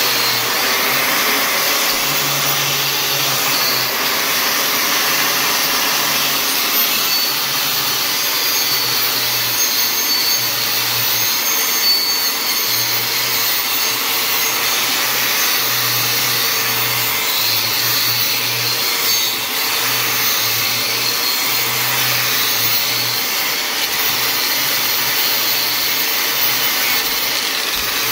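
Angle grinder with a knotted wire wheel running steadily, scrubbing caked-on crud off the wheel flange of a Mopar 8 3/4 rear axle shaft.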